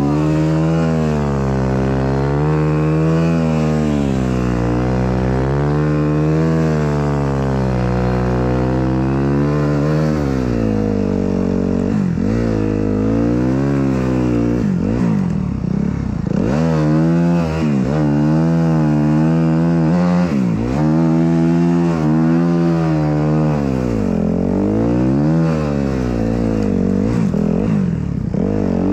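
Snow bike's dirt-bike engine revving up and down constantly under shifting throttle as it is ridden through deep snow, the pitch rising and falling every second or two.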